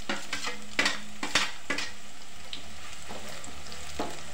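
Chopped onion and minced garlic sizzling in hot oil, with a steady frying hiss. Several sharp clicks of a stirring utensil against the pan in the first two seconds, and one more near the end.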